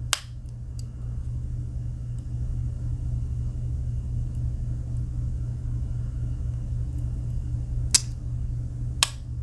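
Clicks of the Victorinox Pioneer Alox pocket knife's tools snapping on their backsprings as they are folded and opened: one right at the start, a faint one just under a second in, and two sharper ones about a second apart near the end. A steady low hum runs under them.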